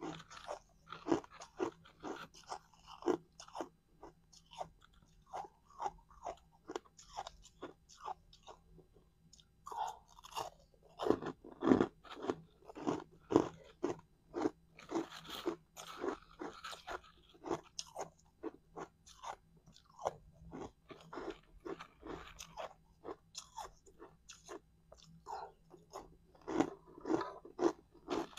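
Crushed ice being chewed close to a clip-on microphone: a steady run of sharp, brittle crunches, about two a second, with a short pause about a third of the way in and the loudest bites around the middle.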